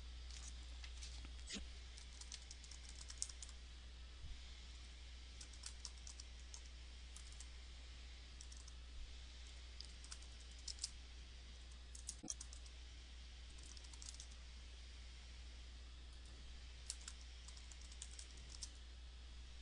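Faint computer keyboard typing in irregular short runs of key clicks, over a low steady hum.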